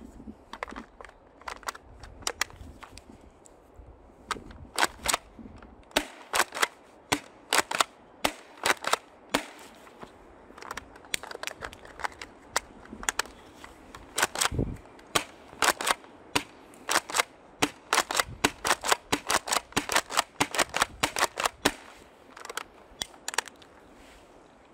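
Airsoft guns firing: many sharp, snappy shots, mostly single and irregularly spaced, coming quicker and denser in the second half.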